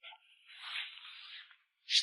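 Cupping on skin: a soft squishing rub lasting about a second, then a sharp pop near the end as a suction cup comes off.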